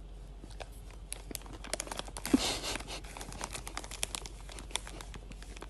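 Irregular crinkling and crackling, as of plastic or paper being handled or pawed, with a denser burst around two to three seconds in.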